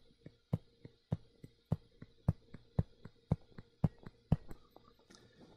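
Stylus tip tapping on a touchscreen as short lines are drawn in quick succession: a sharp tap about every half second, with fainter ticks between.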